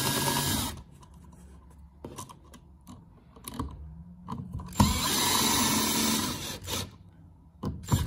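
Cordless drill/driver spinning a light switch's mounting screws into the wall box, in two short runs. One run stops under a second in. The other starts with a click about five seconds in and lasts about two seconds. Faint clicks and taps fall between the runs.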